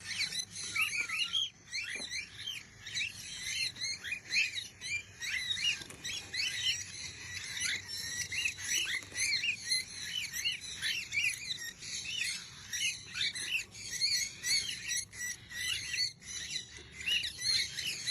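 Many small birds chirping rapidly in a dense, overlapping chorus of short high calls, with no let-up.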